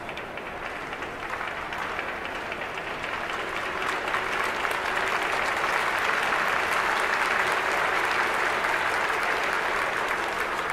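Baseball stadium crowd clapping and cheering, swelling louder about four seconds in.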